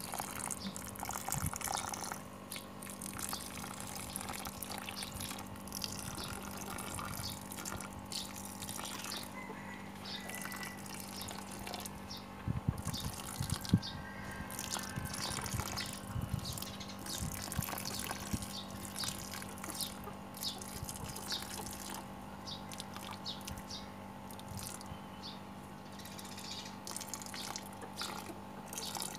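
Diluted rooting-hormone solution poured in a thin stream from a plastic jug onto soaked coir potting mix, trickling and splattering with irregular drips.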